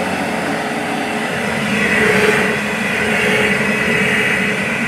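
Dirt Devil Featherweight upright vacuum running on high power, its brush roll spinning on low-pile carpet. A steady motor whine that swells a little about two seconds in and again near the end.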